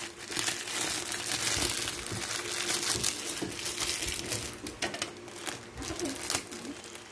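Clear plastic wrapping around a parcel crinkling and crackling as hands handle it and pull it open, with many small sharp crackles, busiest in the first few seconds.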